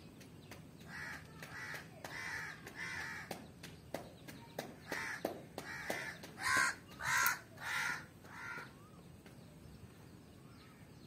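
A crow cawing repeatedly, about a dozen calls, the three loudest about two-thirds of the way through, with scattered sharp clicks in between.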